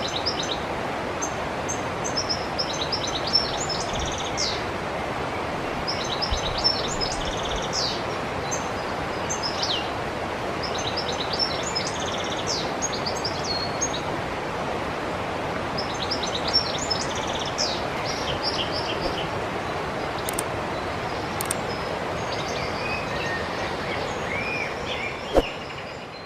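A river running steadily, with a songbird repeating a short high twittering phrase every few seconds. Near the end other birds chirp, there is one sharp click, and the sound fades out.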